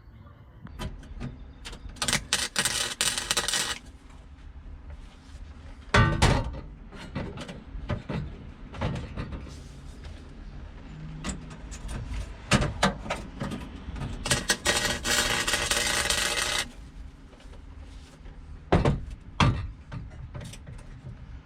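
Flux-core wire-feed welder laying short welds on the steel floor patch, with two crackling bursts of a second or two each. Sharp metal knocks and clicks come in between.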